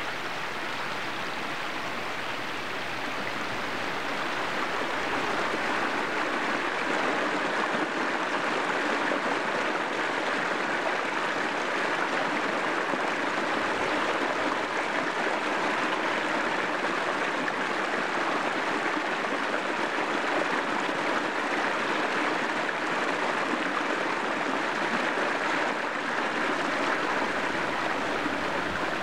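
Small shallow stream running and splashing over rocks in a riffle, a steady rush of water that grows a little louder about five seconds in.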